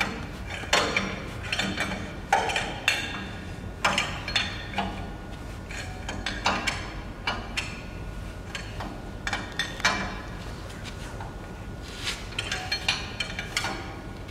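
Irregular metallic clinks and knocks, a dozen or so spaced unevenly, from the tailstock of a CNC wood lathe as its centre is moved along by the large adjusting screw and locked in place.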